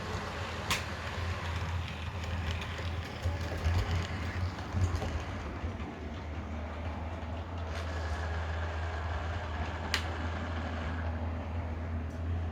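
DCC sound decoder in a model Heljan Class 27 playing the sound file of the real Class 27's diesel engine through the model's small speaker, a steady low engine hum. Two sharp clicks cut through it, one about a second in and one near the end.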